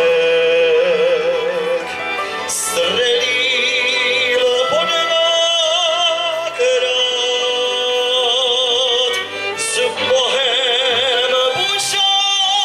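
A man singing a folk song with long, held notes and wide vibrato, accompanied by a cimbalom band of violins and cimbalom.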